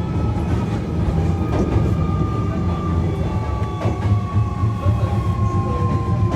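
Hankyu 1300 series electric train running, with its Toyo Denki IGBT inverter and traction motors giving a single tone that falls slowly as the train slows, over a steady low rumble of wheels on rail and a few light clicks from rail joints.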